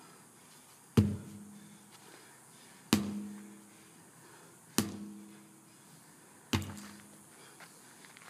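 Sledgehammer striking a tire in slow overhead swings, about one blow every two seconds. There are four hits, each a sharp thud with a short low ring, and a fifth comes right at the end.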